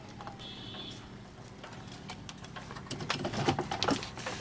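Small clicks and rustles of a CRT television circuit board and its parts being handled while a capacitor is desoldered and pulled out, busier after about three seconds, over a low steady hum.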